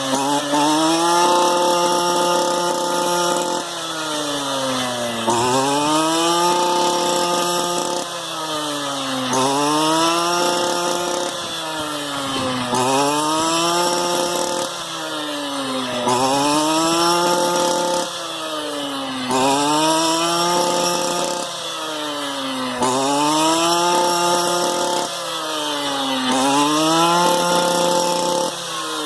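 Two-stroke engine of a STIHL FR 230 backpack brush cutter working in a steady cycle. About every three seconds it drops back in pitch, then revs up again and holds high, nine or ten times over.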